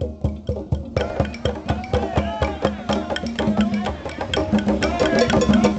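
Several conga drums played by hand in a fast, steady groove, with a stick clicking a sharp wooden pattern over the drums.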